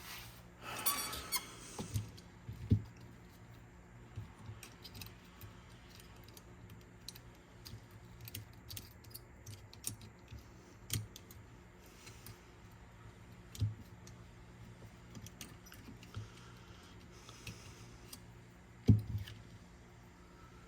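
Small clicks and taps of tools and small metal parts being handled while a lever and spring are fitted onto a shaft in a cassette deck's head mechanism. There is a brief squeak about a second in, and a louder knock near the end.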